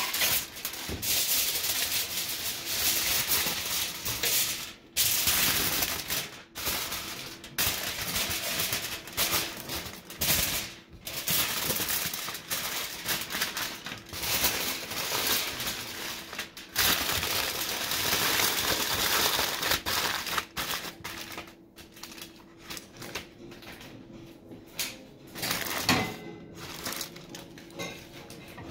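Dense crinkling and rustling with many irregular clicks and knocks, over a faint steady hum; it gets quieter about two-thirds of the way through.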